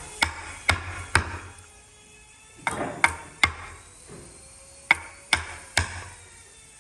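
Hammer blows on a workpiece: nine sharp strikes with a short ring, in three groups of three, about two a second, with brief pauses between groups.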